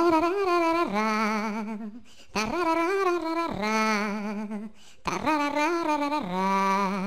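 Ringtone clip of a solo voice singing three similar phrases with strong vibrato, each dropping to a lower held note before a short pause.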